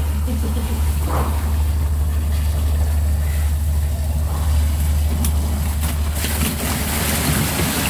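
Fishing boat's engine running steadily, a low drone heard from inside the fish hold. A rushing hiss builds in the last two seconds or so.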